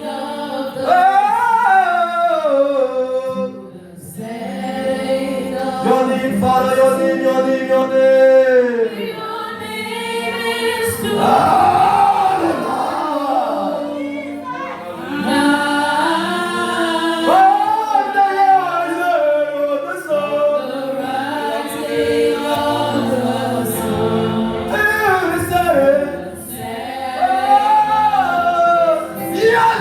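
Voices singing a gospel worship song, with long held notes.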